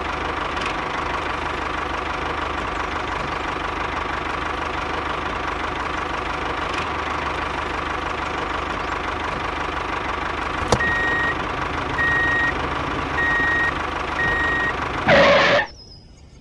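Tractor engine running steadily, with a vehicle's reversing beeper sounding four times, about a second apart, in the second half. A louder burst comes near the end before the sound cuts off suddenly.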